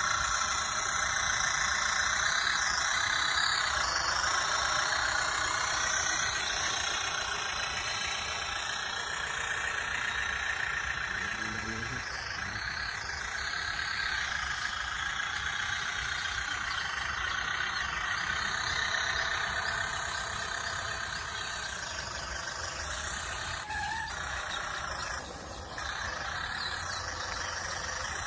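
Radio-controlled scale Massey Ferguson 135 tractor running steadily, a continuous mechanical drone that sits mostly in the upper-middle pitches.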